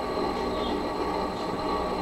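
Servo motors of a homebuilt pipe-gantry CNC running a program, driving its axes along Acme lead screws: a steady mechanical running with a constant high whine. The whine is the servo squeal that the owner puts down to Gecko servo drives not yet tuned.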